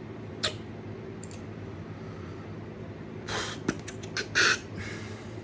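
Handling noise from working a computer: a sharp click about half a second in, then a few quick clicks and short hissing rustles about three to four and a half seconds in, the last the loudest, over a steady low hum.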